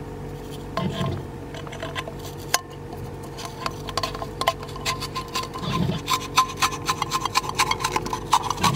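Handling of Pringles chips and plastic sandwich bags: rubbing, crinkling and light clicking that get busier about halfway through, over a steady low hum.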